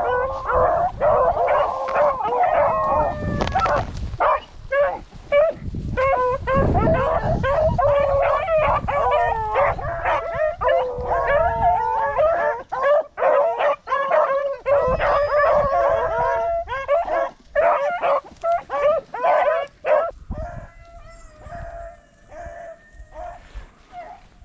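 Several hunting hounds baying and howling together on a rabbit's scent trail, the calls overlapping almost without a break. The chase fades to fewer, fainter calls about twenty seconds in.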